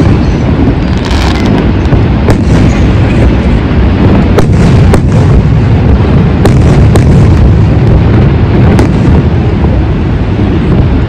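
Fireworks going off: repeated sharp bangs and crackles over a loud, steady low rumble.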